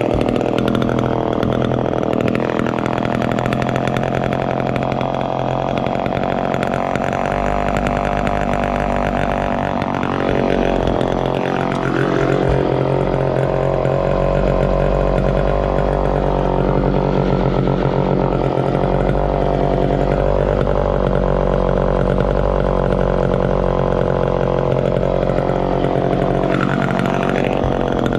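Homelite EZ Automatic two-stroke chainsaw engine running steadily, with the engine speed briefly changing about ten seconds in and again near the end.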